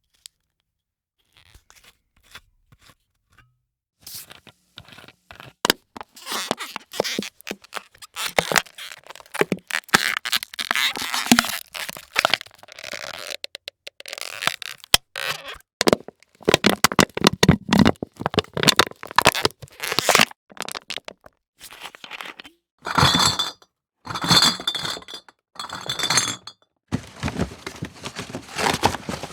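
A run of foley sound effects, one after another: dense cracking, crunching and scraping, in separate bursts after a quiet first few seconds. Near the end come a few short clinking hits with a ringing edge.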